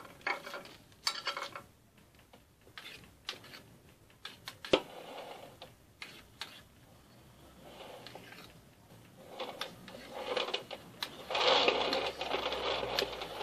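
A metal spoon scraping and clicking against a metal cake ring and the cream as a thin layer of pastry cream is spread over a sponge layer, in scattered light clicks and scratches with a louder stretch of scraping near the end.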